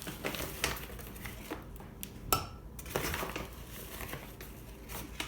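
A cup of powdered washing soda being scooped and poured into a jar: light scraping and rustling of the powder with a few soft clinks and knocks of the measuring cup against the container.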